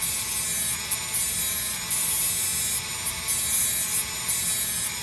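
Dremel rotary tool running at a steady speed, its small sanding bit pressed on and off against a wooden dowel plug in a guitar body's bridge-post hole to grind it down flush. The grinding hiss swells and drops about once a second over the steady motor whine.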